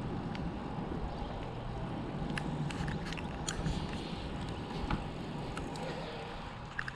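Steady rumble of a bicycle ride, wind on the microphone and tyres on pavement, with scattered light clicks and ticks.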